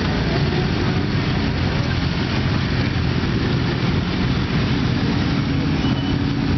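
Many motorcycle engines running at once, idling and pulling away at low speed, a steady mechanical din.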